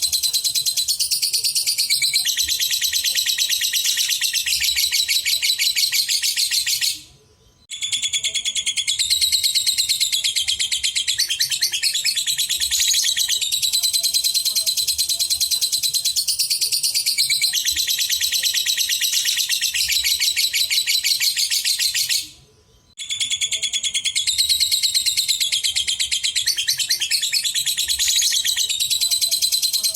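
Lovebird singing its long, rapid, high chattering trill (ngekek), kept up almost without a break. It stops briefly twice, about a quarter of the way in and again about three quarters through.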